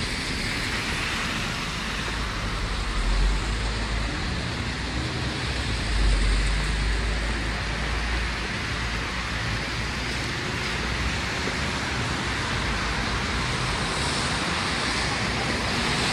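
Steady street traffic on wet roads, mainly the hiss of tyres on wet asphalt, with a deeper rumble about three seconds in and again from about six to eight seconds.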